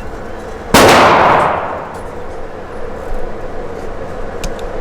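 A single pistol shot about a second in, loud and ringing away over roughly a second.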